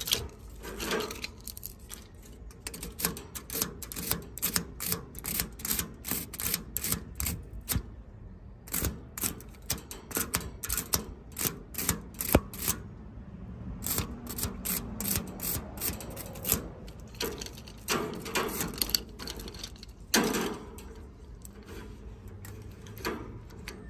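A plastic fin comb dragged again and again through the bent aluminium fins of an AC condenser coil to straighten the crushed fins. It makes a run of scratchy clicks, a few strokes a second, with a short pause about halfway.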